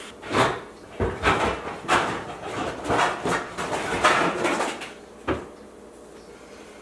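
Kitchen cupboard and metal baking pans knocking and clattering as someone rummages for a pan, a rapid run of knocks for about five seconds, then one more knock a moment later.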